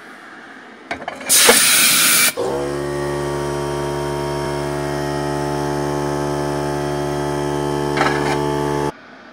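Self-cleaning cycle of a Kotrzewa Platinum Bio 16 kW pellet burner. A loud hiss lasts about a second. Then an electric gear motor hums steadily for about six seconds as it tilts the burner grate to dump its pellets, and it stops abruptly near the end.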